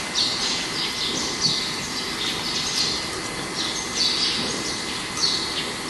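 Small birds chirping: short, high, falling chirps repeating every half second to a second, over a faint steady high whine.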